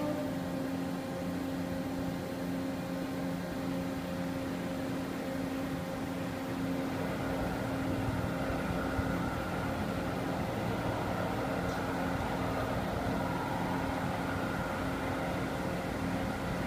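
CNC milling machine cutting Inconel with a coated carbide insert milling cutter under flood coolant: a steady machine hum with several held tones. About seven seconds in it grows louder and rougher and a higher tone joins.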